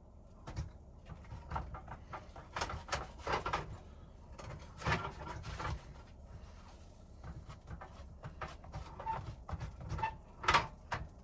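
Irregular clatter of kitchenware being handled: scattered clicks and knocks, a couple of short clinks, loudest about five seconds in and near the end.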